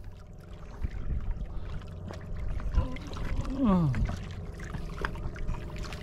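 Seawater splashing and dripping at an outrigger boat's side as a fishing handline is hauled in hand over hand, with a short falling vocal groan about three and a half seconds in.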